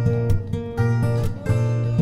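Background music led by a strummed acoustic guitar with a steady rhythm.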